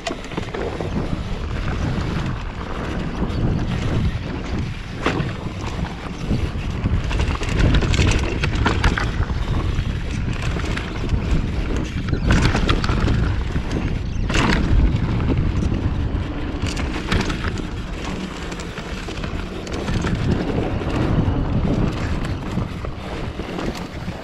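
Wind buffeting the microphone in a low, steady rumble as a mountain bike rides a trail, with scattered knocks and rattles from the bike over rough ground.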